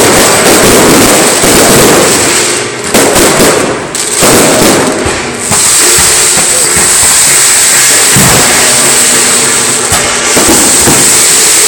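Fireworks going off nonstop in a dense, loud crackle, dipping briefly a few times. From about halfway in, steady music tones sound underneath.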